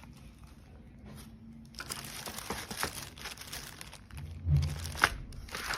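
Crinkly packaging being handled and unwrapped, a dense run of crackling and rustling that starts about two seconds in. A dull thump about four and a half seconds in and a sharp click just after are the loudest moments.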